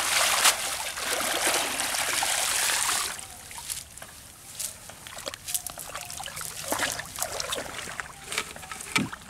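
Water splashing and streaming off a cast net as it is hauled out of the pond, for about three seconds. Then quieter scattered rustles and taps as the wet net is laid on the grass.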